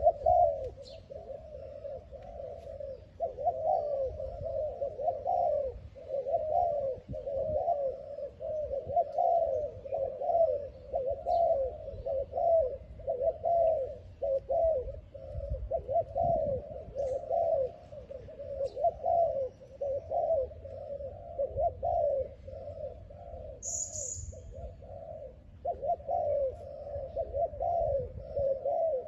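Spotted doves (terkukur) cooing, phrase after phrase almost without pause, with a short break about three-quarters of the way through. A single high chirp from a smaller bird comes just before that break.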